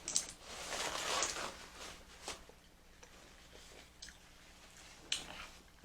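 Close-miked chewing of seafood boil, with soft, wet, squishy mouth sounds for about two seconds, then a few faint lip smacks and clicks.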